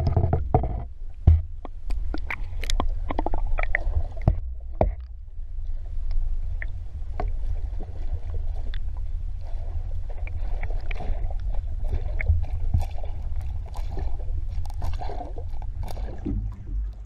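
Muffled underwater sound: a steady low rumble and wash of water, with many scattered clicks and pops.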